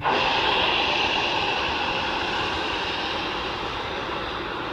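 Narrow-gauge steam locomotive letting out steam: a loud hiss that starts suddenly, then holds steady and eases off only slightly.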